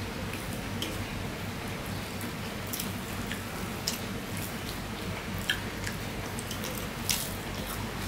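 Fingers mixing cooked rice with curry on a steel plate: soft wet squishing with a few sharp clicks, over a steady low hum.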